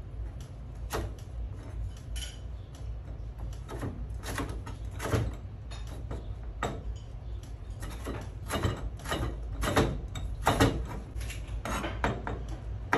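Kitchen knife slicing carrot into matchsticks on a plastic cutting board: sharp knocks of the blade on the board about once a second, coming closer together in the second half.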